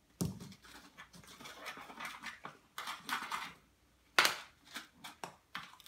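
Metal spoons scraping and tapping against plastic bowls and a plastic tub of baking soda as powder is scooped and stirred, in scattered short scrapes and clicks, with one sharp knock about four seconds in.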